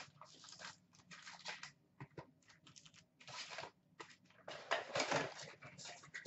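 Hands opening a cardboard hockey-card box and pulling out its stack of packs: a run of short rustles, scrapes and taps, loudest about two-thirds of the way through as the packs are lifted out and set down.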